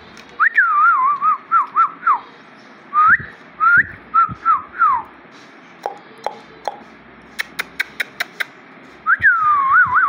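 Alexandrine parakeet whistling: three runs of clear, wavering notes that glide up and down. In the pause between the second and third runs comes a string of short, sharp clicks.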